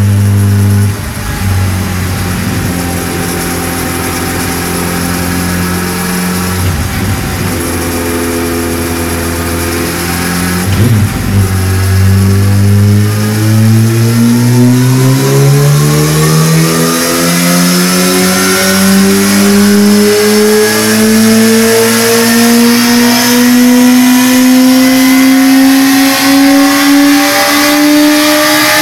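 2008 Yamaha R1's inline-four engine running through an Akrapovic exhaust while driving a dyno roller. It holds a steady low speed for about ten seconds, then the revs climb slowly and evenly through the rest of the run in a long dyno pull.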